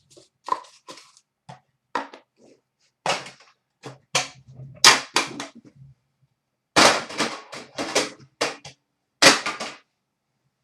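A string of sharp snaps and crinkling rustles from trading-card packaging and cards being handled. The longest and loudest crackles come about 5, 7 and 9 seconds in.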